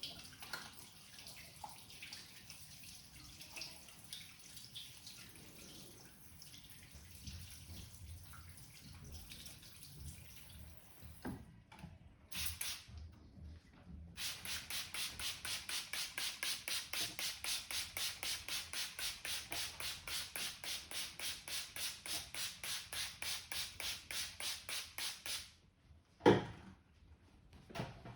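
Hands working rapidly on the head during a barber's head massage: a quick, even rhythm of strokes, about four a second, that runs for around eleven seconds after some quieter rubbing. Soon after the strokes stop comes one loud, sharp sound.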